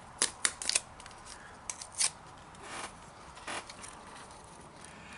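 Small paper seasoning packets handled and torn open by hand: a quick run of sharp crackles and ticks in the first second, then a few scattered ticks and short rustles.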